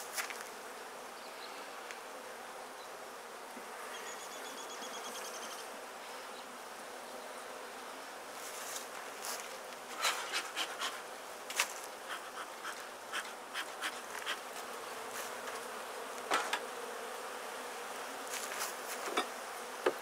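Honeybees buzzing steadily in a dense swarm around an open top-bar hive. From about eight seconds in, scattered sharp clicks and taps sound over the hum.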